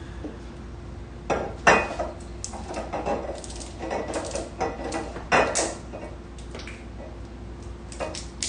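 Glass and hard parts clinking and knocking as they are handled and set in place: a run of sharp knocks with brief ringing over a few seconds, then two more near the end.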